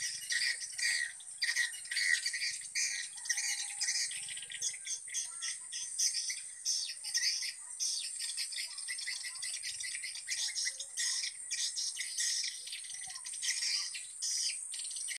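Swiftlets twittering: a dense, continuous stream of rapid high chirps over a steady high whine, the call sound played at a swiftlet house to draw the birds in to nest.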